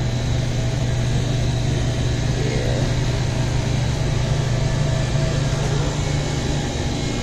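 Steady low machine hum of store refrigeration and air-handling equipment, unchanging throughout, with a few faint steady tones above it.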